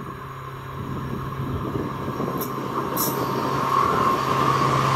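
Work train approaching a level crossing, its rumble growing steadily louder. Two short high hisses come about halfway through.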